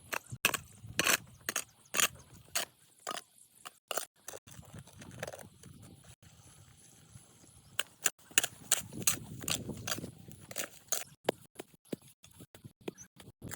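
A run of irregular sharp knocks and clicks, as of hand tools striking and scraping stone and gravel during road repair work, with a low rough noise in the middle.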